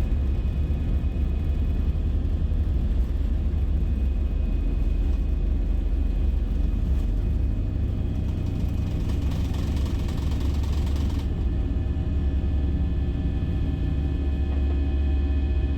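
Airbus A320 cabin noise in flight: the steady deep rumble of the jet engines and airflow, with a few thin steady whines over it. A brighter hiss swells up about eight seconds in and cuts off suddenly about three seconds later.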